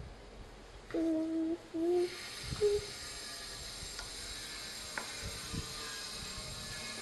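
A person makes short closed-mouth hummed "mm" sounds: two steady ones about a second in and a shorter one just after, followed by a few faint clicks.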